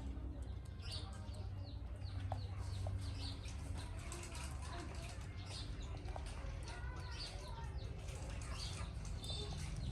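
Many short, high-pitched animal chirps repeating irregularly, over a low steady hum.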